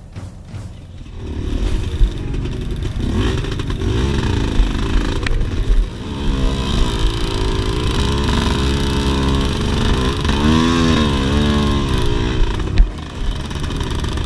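HJX 250cc two-stroke dirt bike engine revving hard under load on a steep trail climb, its pitch rising and falling with the throttle. It gets louder about a second in and rises and falls sharply again near the end.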